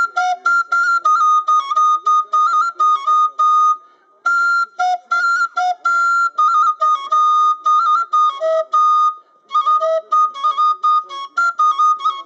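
A folk melody played solo on a short end-blown wooden pipe, in quick, separated notes that step up and down, with brief pauses about four and nine seconds in.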